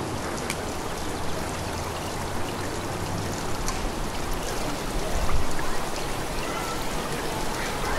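A small woodland stream trickling steadily, with a brief low rumble about five seconds in.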